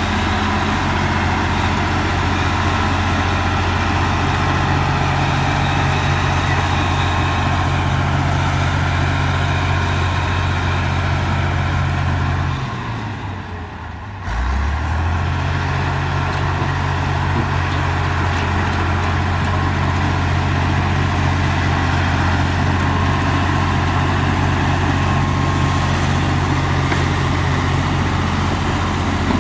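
Komatsu bulldozer's diesel engine running steadily. About halfway through, its pitch sags and it goes quieter for a couple of seconds, then picks straight back up to the same steady note.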